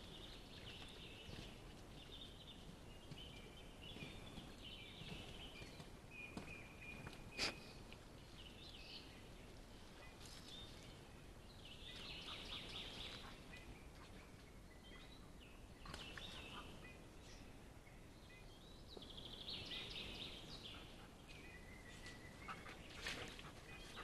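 Faint birdsong: short chirping phrases that come and go, over quiet forest background, with one sharp click about seven and a half seconds in.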